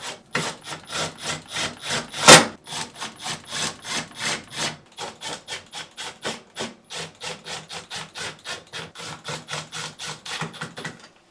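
Hand tool driving the screws that hold the freezer door brackets to the slide rails, a rhythmic ratcheting click at about four strokes a second, with one louder knock a little after two seconds in.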